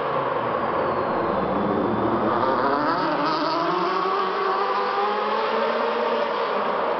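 Super TC2000 touring cars racing on a tight arena circuit, their engines revving up and down, the pitch rising and falling as they accelerate and brake through the corners.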